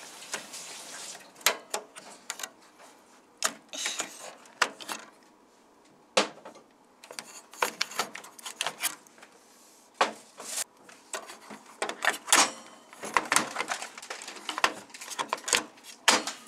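Batteries being changed in a gas stove's ignition battery tray: irregular plastic clicks and knocks as the tray is handled and the cells are pulled out and pushed in. A busier run of clicks comes in the last few seconds as the tray is closed and the controls are pressed. The stove would not light because its ignition batteries had run down.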